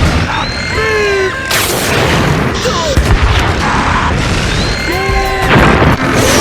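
Loud, dense meme-edit sound effects: booms and a constant crackling noise filling the whole range, overlaid with short cartoon sound effects. Pitched tones glide about a second in and again near the end.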